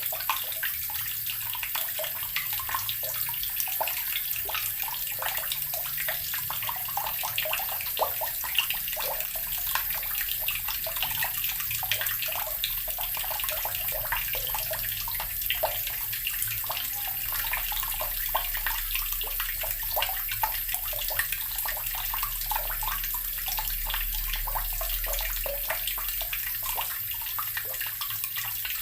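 Water from a tap pouring and gurgling into an earthen water barrel: a steady splashing stream full of quick, bubbly plops.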